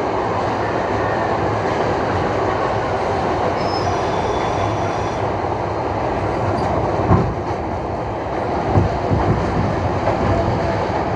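Train running on rails with a steady rumble of wheels, a faint high squeal briefly around four seconds in, and from about seven seconds in the clickety-clack knocks of the wheels crossing rail joints.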